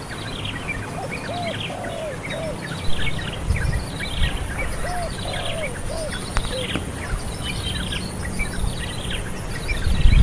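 Birds chirping: many short, high chirps that sweep downward, repeated throughout, with lower rising-and-falling notes at intervals.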